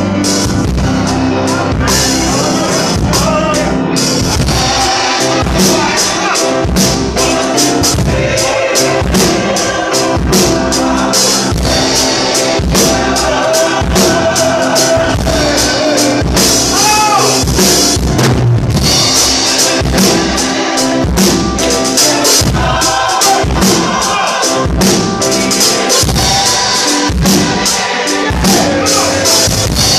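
Church choir singing a gospel song, accompanied by piano and a steady drum beat.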